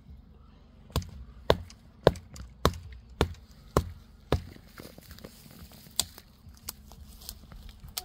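Small hatchet chopping at a thin young tree trunk: a run of about seven sharp blows, roughly two a second, then after a pause one more hard blow and a few lighter ones.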